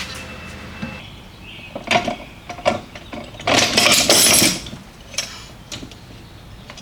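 Hand tools and metal parts clinking and clanking during transmission assembly work, with a rattly, ratchet-like burst lasting about a second near the middle.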